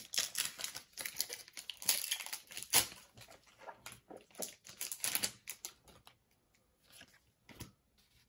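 Foil Pokémon booster pack being torn open and handled, crinkling in a rapid run of crackles that thins to a few scattered crackles after about six seconds.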